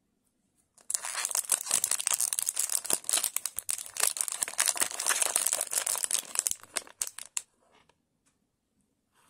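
Thin metallic foil pouch crinkling and tearing open by hand: a dense crackle starts about a second in and thins out to a few scattered crinkles after about six seconds.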